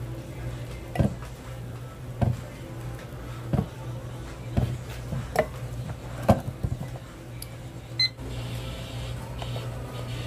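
Cast-iron bubble-waffle pans clanking as they are closed, flipped and set down on their stand: a series of sharp metal knocks about a second apart, the last ringing briefly, over a steady low hum.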